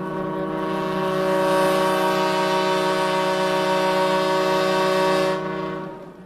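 A long, steady horn blast on one unchanging pitch, swelling in and then fading out about five and a half seconds in.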